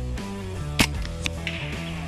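A single sharp crack from a .30 calibre Hatsan Blitz PCP air rifle firing, about a second in, over steady background music.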